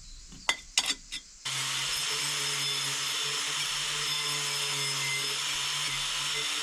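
A few light clicks, then about a second and a half in a power tool starts and runs steadily for about five seconds, a loud even hiss over a low hum, stopping suddenly.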